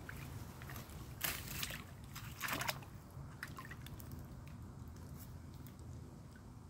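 A fishing magnet on a rope being pulled up out of shallow river water: two short splashes, about a second in and again a second later, then water trickling, over a steady low rumble.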